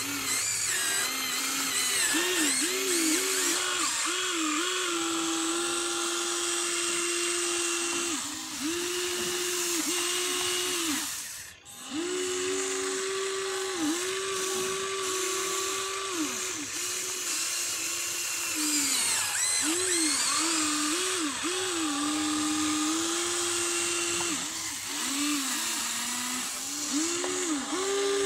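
Electric motors of a Huina RC excavator whining as the boom, arm and bucket are worked. The whine holds level for stretches and swoops up and down in short rises and falls as the motors speed up and slow, and drops out briefly just before the middle.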